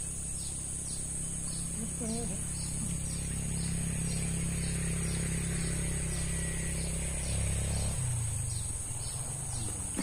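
Outdoor swamp ambience: a steady high-pitched insect drone with short chirps repeating about twice a second, over a steady low rumble.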